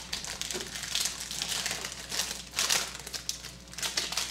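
Plastic wrapper of a 2012 Panini Absolute Football card pack crinkling as it is handled and opened by hand, in a quick run of irregular crackles.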